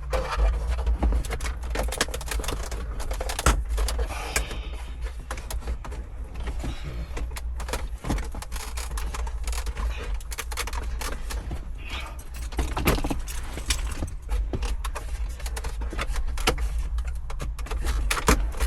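A plastic interior trim panel being tugged and pried loose, with many quick clicks and knocks of plastic clips and parts being handled, over a steady low rumble.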